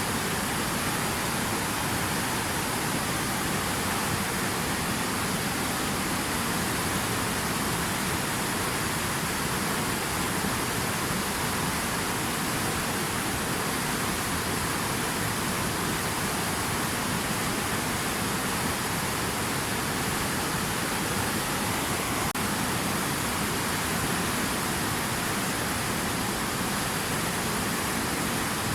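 Steady rushing water, an even, unbroken hiss and roar with no separate splashes or drops.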